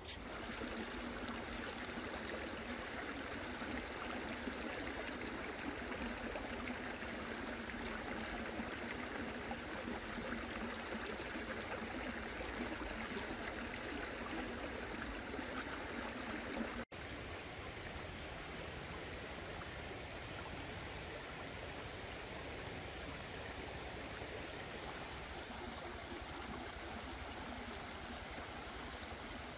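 Shallow forest stream running over rocks, a steady rush of water that cuts out for an instant just past halfway.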